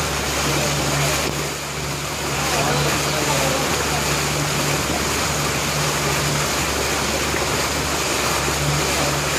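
Boat engine running steadily with a low hum, over an even rush of water and wind noise as the boat moves across the lake.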